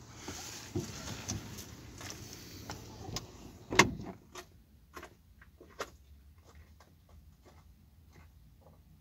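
A car door slamming shut with one loud thud about four seconds in, after a few seconds of rustling and knocks, followed by a run of faint scattered clicks.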